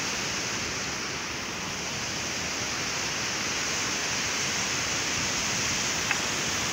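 Steady rush of a fast-flowing mountain stream tumbling over rocks.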